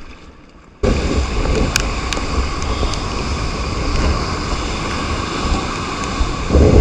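Rough sea churning and breaking around a sea kayak, with wind buffeting the action camera's microphone; the noise cuts in suddenly about a second in and carries a strong low rumble.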